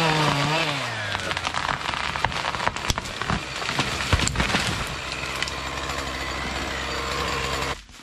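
Chainsaw running and cutting into a birch trunk. Its engine note drops in the first second as it takes the cut, then holds steady under the cutting noise. There are a couple of sharp cracks partway through, and the sound stops abruptly just before the end.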